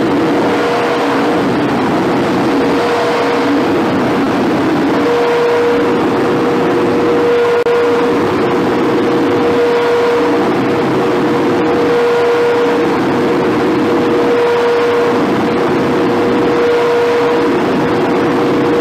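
Underground mine ventilation fan surging: a steady droning tone under a rush of air that swells and fades about every two and a half seconds as the fan swings back and forth between two flow rates. This unstable, stalled operation comes from high system resistance, an obstructed ventilation raise, and strains the fan's blades and structure.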